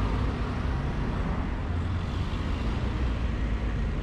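Steady low rumble of street traffic, with a small delivery truck's engine running close by.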